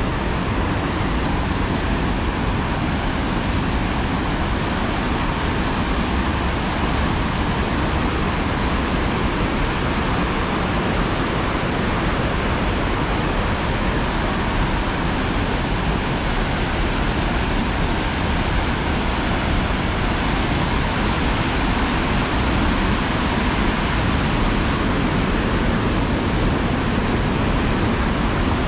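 Big Almaty River water rushing down its concrete channel and over stepped weirs: a steady, even rush of white water.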